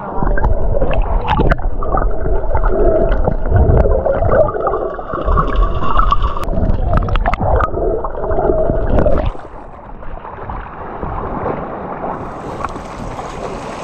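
Muffled rumbling and gurgling of water against a microphone, the way a camera sounds underwater or awash, with scattered knocks. About nine seconds in it drops to a quieter, steady hiss.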